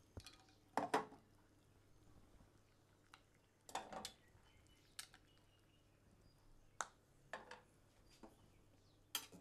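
A handful of light clinks and knocks, the loudest about a second in: a glass lid lifted off a steel pot and metal tongs lowering small glass jam jars into the water.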